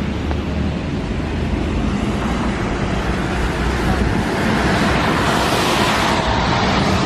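Outdoor street noise: road traffic rumbling, with wind buffeting the microphone, swelling for a couple of seconds about five seconds in.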